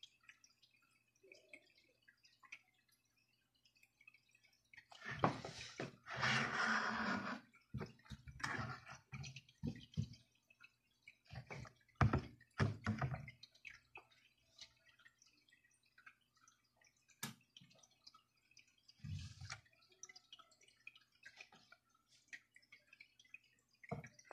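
Handling noises: scattered light taps and knocks, with a longer scraping, rustling stretch about five to seven seconds in, as a porcelain platter and cucumber garnish slices are handled and shifted on a plastic cutting board.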